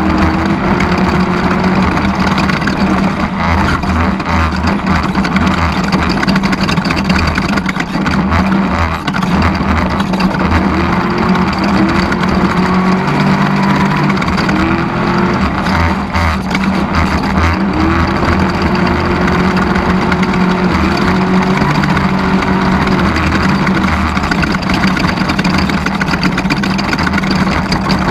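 Off-road race vehicle's engine running steadily under load, with a loud, even rush of noise over it and a faint tone that wavers up and down a few times.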